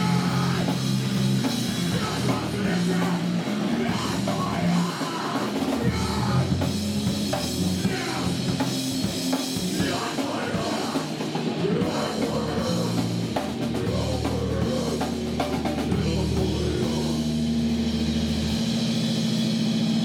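Grindcore band playing live: distorted electric guitars over a drum kit, fast and dense. A long steady note holds through the last few seconds.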